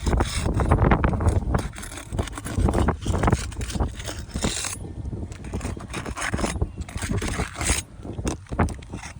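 Irregular scraping and rubbing with scattered knocks, over a low rumble in the first couple of seconds.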